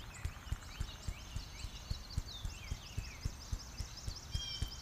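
Soft, muffled thumps in a rapid, even rhythm from the little-finger edges of two hands being clapped together in a self-massage. Birds chirp in the background.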